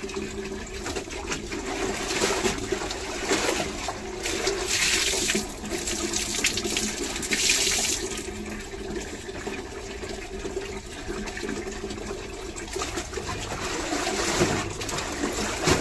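Tap water pouring steadily into a tub, with wet clothes being sloshed, rinsed and wrung by hand, and several louder splashes along the way.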